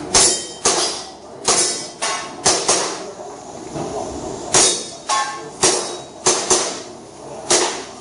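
Airsoft pistol shots fired in a fast string, about a dozen sharp cracks, some in quick pairs, with short pauses between groups.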